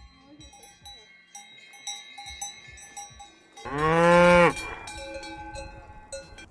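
Cowbells on grazing cattle clanking and ringing irregularly. About halfway through a cow moos once, loudly, for about a second.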